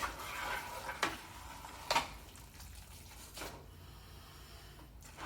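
Fried rice sizzling quietly in a pan, just dosed with soy sauce, with a few sharp clinks of a utensil against the pan, the loudest right at the start and about two seconds in.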